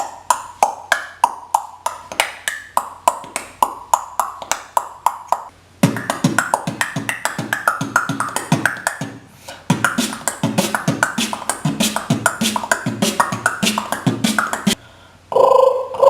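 Beatboxer making sound effects with his mouth: a run of sharp, evenly spaced clicks, about three to four a second, then two stretches of dense, fast rhythmic mouth sounds. A held humming tone begins near the end.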